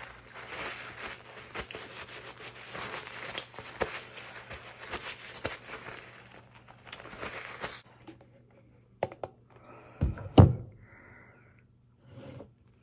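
Close-up eating and handling noises: many small clicks and scrapes of a spoon and dish over a noisy background. After that it goes quiet, with a few knocks and two dull thumps near the end.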